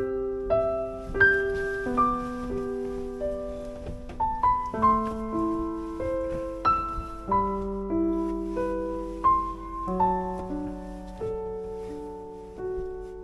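Background piano music: a slow melody of struck notes that ring and fade, over held lower notes.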